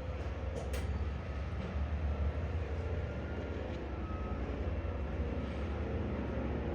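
A heavy machine's engine running steadily with a low rumble, and one short click about a second in.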